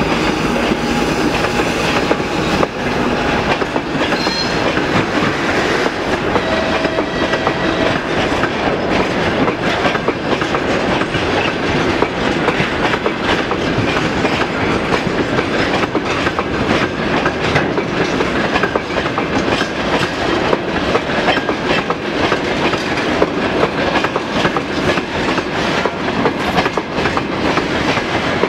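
Loaded railway tank cars of a departing freight train rolling past at close range, their wheels clacking steadily over the rail joints, the clacks coming quicker later on as the train gathers speed. A few brief faint squeals come in the first seconds.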